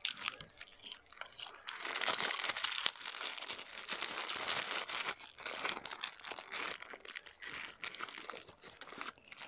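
Dense crunching and crinkling made of many sharp crackles, thickening about two seconds in: crispy fast food being bitten into and chewed.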